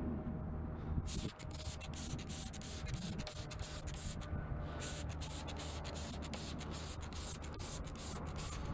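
Plastic tail light lens being wet-sanded by hand with 400-grit sandpaper: a fast run of short rasping back-and-forth strokes starting about a second in, with a brief pause a little past halfway. A steady low hum runs underneath.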